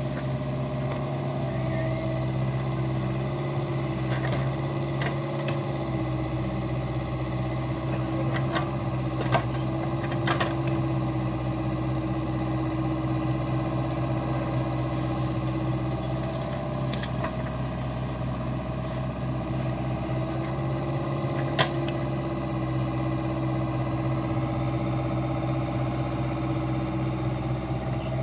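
Caterpillar 304E mini excavator's diesel engine running steadily while the machine digs wet earth. A few sharp knocks of the bucket and linkage come through, the loudest about nine and twenty-two seconds in.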